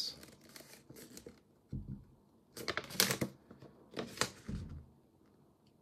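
A paper pamphlet being handled: its pages rustle and flick in a few short bursts, with a couple of soft knocks in between.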